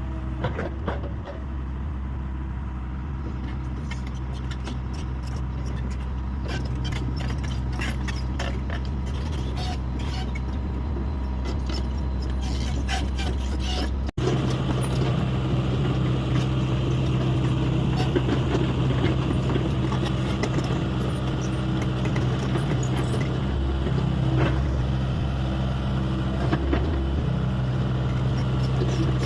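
Hyundai 85A excavator's diesel engine running steadily at work, with a scatter of short clicks and knocks during the first half. There is an abrupt cut about halfway, after which the engine is louder.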